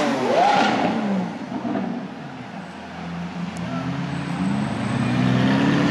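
Lamborghini Aventador's V12 engine revving: a quick rise and fall in pitch just after the start, then the engine note climbs again gradually and gets louder over the last couple of seconds.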